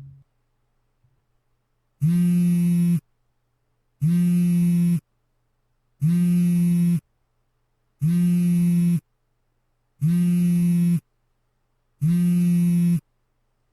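Electronic buzzer sounding six times: low, buzzy one-second tones, each cut off squarely, repeating every two seconds.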